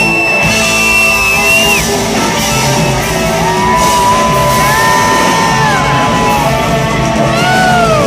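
Live rock band playing loud: electric guitars, bass and drums, with a lead electric guitar holding long high notes that bend up and down in pitch.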